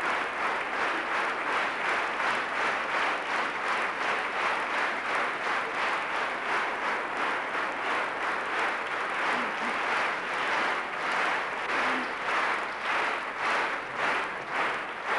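Large concert-hall audience applauding, the clapping falling together into a steady rhythmic beat of about two to three claps a second.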